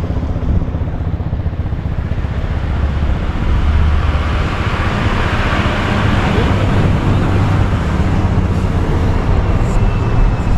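Steady rumble and rush of a vehicle driving, heard from inside the cabin with the window open: engine, tyre and road noise that swells a little in the middle.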